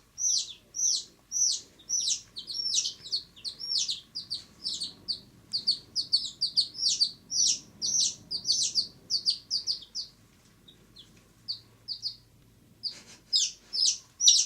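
Domestic chicks peeping: short high-pitched peeps that each slide downward, about two a second at first, then many overlapping. The peeping thins to a few faint peeps about two-thirds of the way through, then picks up loudly again near the end.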